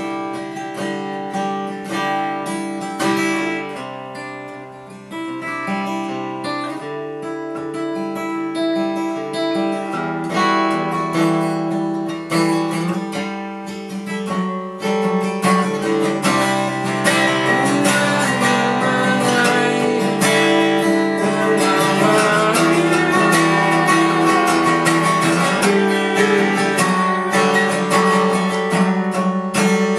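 Steel-string acoustic guitar played solo, with notes ringing throughout. It builds steadily louder and fuller through the first half and stays at that level from about halfway on.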